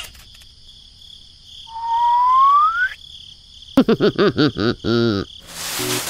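Cartoon-style sound effects over a faint, steady cricket-like chirping: a single rising whistle-like squeak about two seconds in, then a quick run of high, warbling pitch-bending sounds, and a whoosh near the end.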